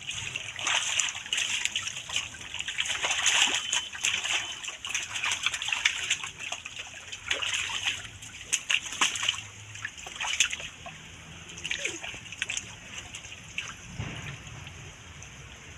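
Shallow water splashing and sloshing as hands grab among a heap of wriggling catfish, a busy patter of many small splashes. The splashing thins out over the last few seconds, apart from one heavier splash near the end.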